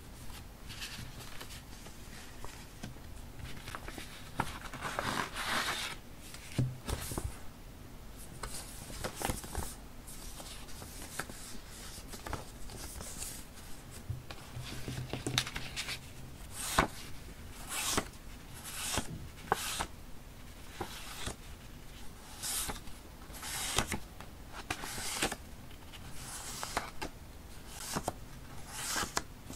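Paper rustling and sliding as hands shuffle through die-cut vintage paper pieces and stickers, mixed with the crinkle of their clear plastic packaging. It comes as a run of short, irregular swishes with a few light taps.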